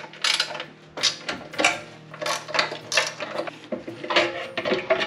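Irregular metallic clinks and knocks of the carburetor, its linkage and tools being handled as the stock carburetor is pulled off a HiSun mini bike engine.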